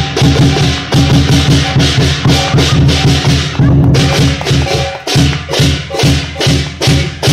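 Lion dance percussion playing a fast, steady beat: big drum strokes with crashing cymbals over a ringing gong tone.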